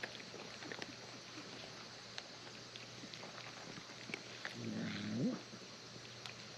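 A cat's single short meow, under a second long, rising in pitch at its end, about four and a half seconds in, over faint scattered clicks.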